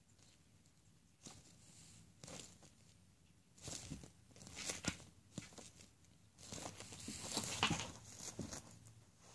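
Faint, scattered rustling and scratching of a bearded dragon's claws and body on a cotton sock as it grips and shuffles on the foot, with a denser run of scrapes about two-thirds of the way through.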